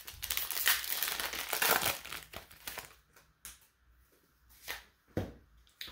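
Foil wrapper of a trading-card booster pack being torn open and crinkled for about two seconds, followed by scattered short crackles and clicks as it is handled.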